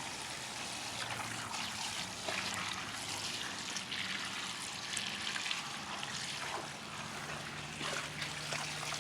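Water running steadily into a giant water balloon as it fills.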